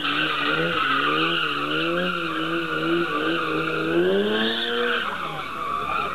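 Car being driven hard with its tyres squealing continuously, the engine held at high revs and swinging up and down as the throttle is worked; about five seconds in the revs fall away while the tyre squeal goes on.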